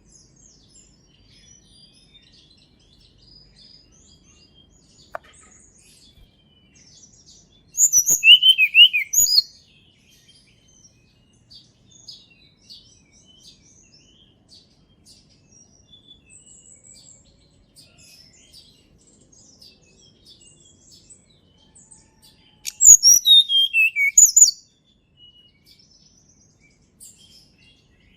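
Tledekan gunung songbird singing: two loud bursts of rapid high notes with falling sweeps, about eight seconds in and again near twenty-three seconds, each lasting under two seconds. Faint scattered chirps come between them.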